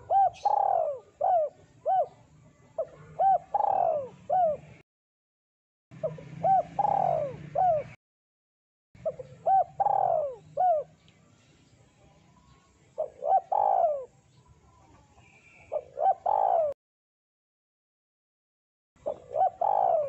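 Spotted dove cooing in repeated phrases of short rising-and-falling coo notes, about six phrases with brief silent gaps between them.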